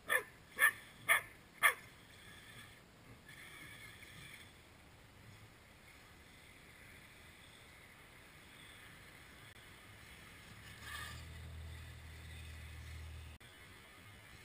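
A dog barking four times in quick succession, about half a second apart, each bark dropping in pitch. Later a faint low hum comes in for a couple of seconds.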